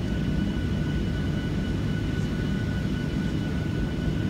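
Airliner cabin noise: a steady low rumble from the jet engines and airflow, with a thin steady high whine over it.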